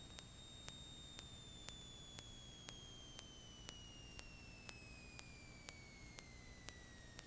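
Near silence with a faint high electrical whine that glides slowly and steadily down in pitch, and a light tick about twice a second.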